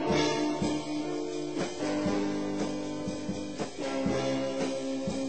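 Rock band jam of drum kit, guitar and keyboard: held keyboard chords over a steady drum beat.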